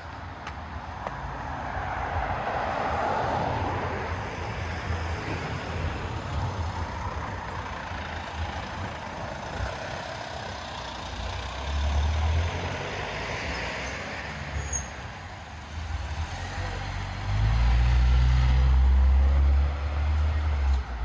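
Street traffic: vehicles passing, with the low rumble of a heavy vehicle such as a truck or bus, loudest near the end.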